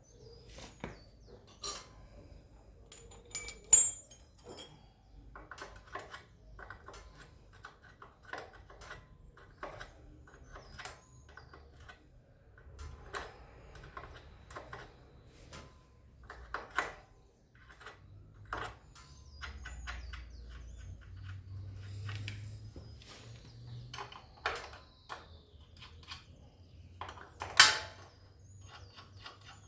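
Spanners working the rear axle and chain adjuster nuts of a motorcycle to slacken the drive chain: irregular metallic clicks and clinks of tools on nuts and frame, with a few louder clanks about four seconds in and near the end.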